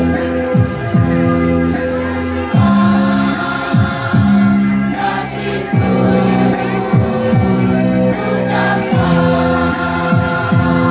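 Children's choir singing held notes over a musical accompaniment with a regular, deep beat.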